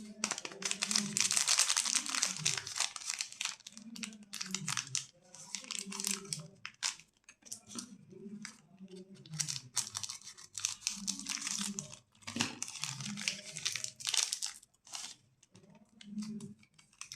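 Plastic candy and chocolate wrappers crinkling and being torn open in repeated bursts.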